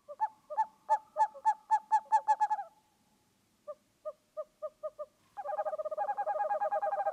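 A bird calling in short pitched notes: first a run that speeds up, then a softer, slower run, then a fast steady trill near the end.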